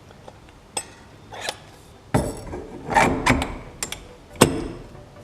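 Steering wheel being handled on a quick-release hub adapter: a string of sharp metallic clicks and clacks, about seven in all, the loudest near the end.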